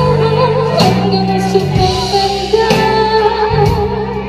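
A young woman singing into a microphone over musical accompaniment, amplified through a stage sound system, with long held notes.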